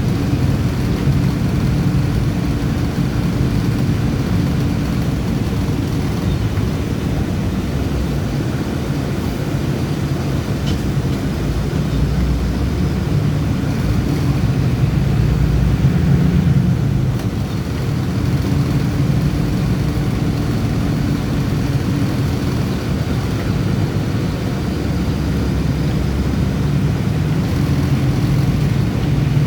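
A bus's diesel engine running as the bus is driven, a steady low drone whose tone shifts and briefly drops near the middle.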